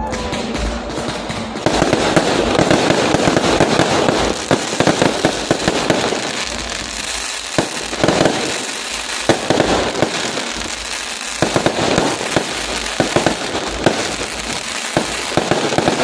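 Fireworks going off in a dense, continuous crackle with many sharp pops and bangs, heaviest a couple of seconds in.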